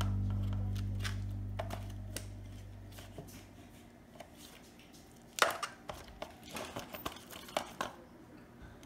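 Background guitar music fading out, then irregular crinkles and clicks from a disposable aluminium foil pan as gloved hands toss marinated fish pieces in it.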